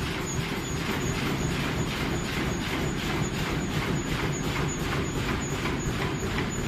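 Three-side-sealing pouch making machine running at production speed, cycling with an even beat of about three strokes a second over a steady low rumble, with a faint high tone pulsing in step.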